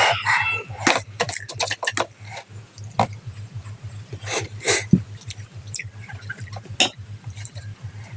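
Close-miked eating: wet chewing and slurping of pancit Canton noodles, with irregular short clicks and smacks, over a steady low hum.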